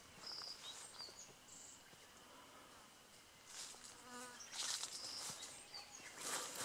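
Footsteps along a grassy dirt trail, brushing through bamboo grass, with a fly buzzing briefly past about four seconds in. A few short, high chirps come and go.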